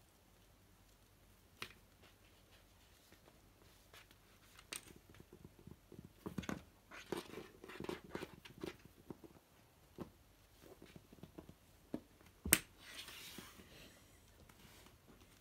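A kitten's paws scrabbling and tapping on wooden floorboards as it pounces on a fabric lanyard dragged across the floor: faint, irregular scuffs and light knocks, busiest in the middle. One sharp click near the end, followed by a brief scraping rustle.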